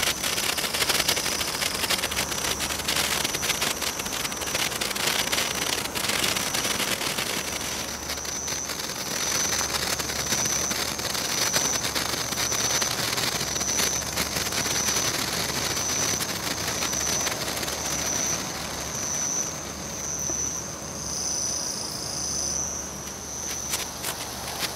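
Senko hanabi (Japanese thread sparkler) crackling: a dense run of tiny sizzling pops as its molten bead throws out sparks. Behind it is a steady high-pitched trill that pulses in regular beats.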